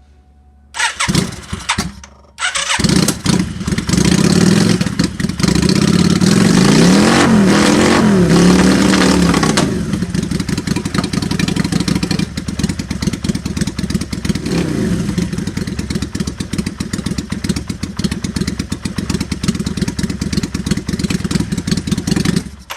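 1992 Yamaha Virago XV535's air-cooled V-twin coughing and spluttering back to life on its first start after an engine rebuild. It fires briefly about a second in, dies, then catches. It is revved up and down a few times, then settles to running.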